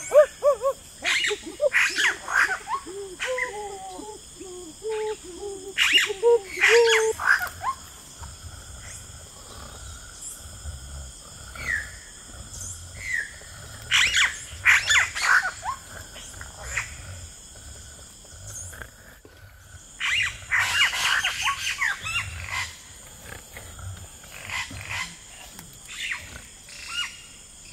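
People making wordless, animal-like vocal sounds: wavering hooting cries in the first several seconds, then scattered sharp shrieks and squeals, over a steady high-pitched drone.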